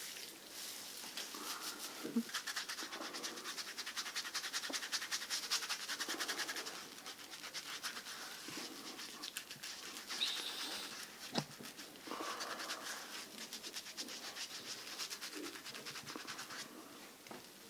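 Close-miked, fast scratchy scrubbing of the face and head during a barber's facial and hair wash, in runs of a few seconds with pauses. There is a single sharp click about eleven seconds in.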